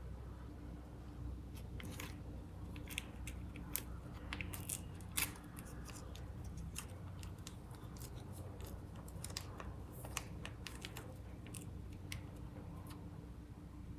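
Plastic sauce sachet crinkling in the hands as it is torn open and squeezed: a scatter of sharp crackles and clicks, the loudest about five seconds in, over a faint low hum.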